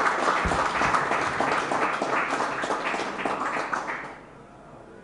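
Audience applauding, many hands clapping, dying away about four seconds in.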